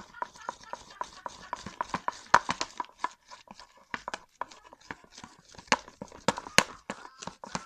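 Homemade slime being mixed and worked, giving many irregular sticky clicks and wet pops, several a second.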